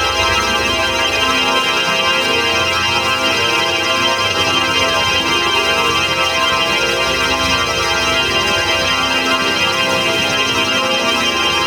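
Organ holding a dense sustained chord, steady and unchanging in loudness.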